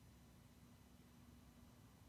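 Near silence: the faint low hum of a Harbor Breeze ceiling fan running, with a thin steady tone that starts just after the opening and fades near the end.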